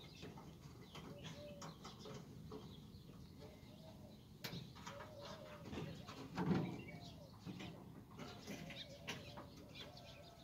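Scattered small metal clicks and taps of hand tools working on a feeder pillar's fuse panel, with a louder knock about six and a half seconds in. Short bird calls repeat in the background.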